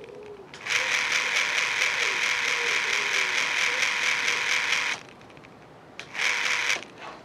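A dropped, damaged fan heater switched on in bursts, its fan clattering with a fast rattling: a long burst of about four seconds, then a short one near the end, each cutting in and off abruptly.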